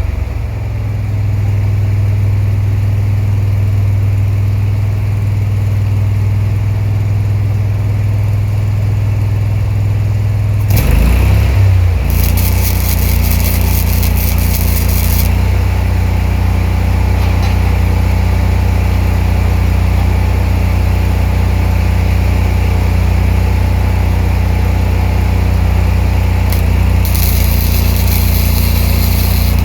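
Ranger engine-driven welder's engine running steadily. Its engine note changes about eleven seconds in. Two short spells of crackling hiss, a few seconds each, come from the spool gun's MIG welding arc.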